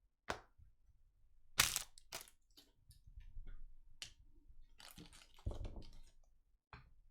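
Trading card packs and cards being handled: a run of sharp crinkles and clicks, the loudest about one and a half seconds in.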